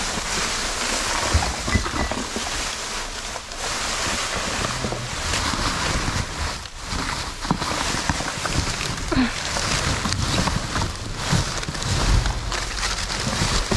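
Rummaging through rubbish in a dumpster: a continuous rustle and crinkle of plastic bags and packaging being handled, with scattered low knocks and thumps.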